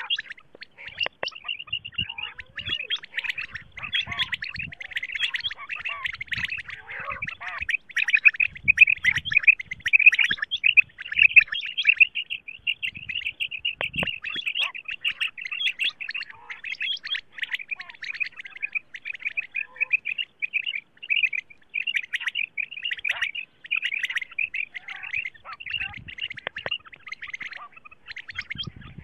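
Female common quail calls: a dense, fast run of high chirps with only brief breaks.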